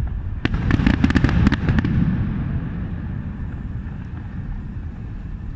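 Aerial fireworks display: a quick run of crackling pops from bursting shells about half a second in, lasting over a second, over a low rumble that slowly fades.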